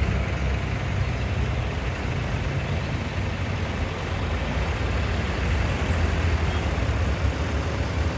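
Diesel tractor engines running as a procession of tractors drives past. A green John Deere tractor draws level and passes close, and the engine sound grows a little louder in the second half. Blue tractors follow behind it.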